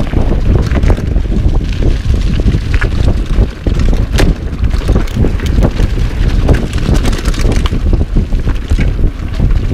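Mountain bike riding fast over a dirt singletrack: a steady low rush of wind buffeting the microphone, with frequent clicks and rattles from the bike as it jolts over bumps.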